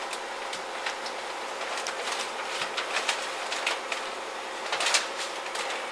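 Masking paper and plastic sheeting crinkling and crackling in irregular bursts as it is handled and tucked into place, over a steady background hum. The crinkling is sharpest about five seconds in.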